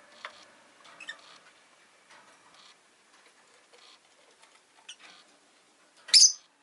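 Rosy-faced lovebird making soft short squeaks and scratchy clicks, then one loud, brief, high-pitched chirp near the end.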